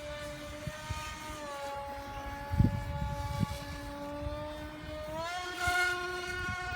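RC airplane's motor and propeller droning in flight, a steady whine whose pitch drops a little about a second in and rises again near the end as the plane flies around. Two short low thumps in the middle.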